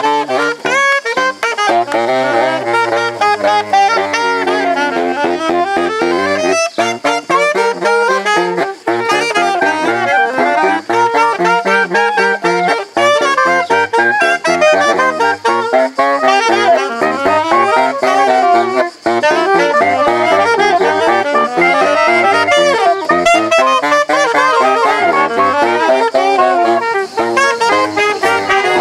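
Soprano saxophone playing a jazz melody in quick runs of notes, with lower accompanying notes moving underneath.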